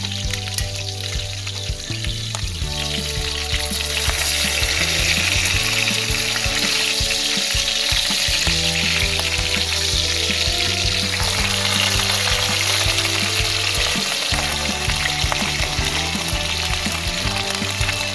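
Bacon sizzling in a frying pan, the sizzle getting louder about four seconds in.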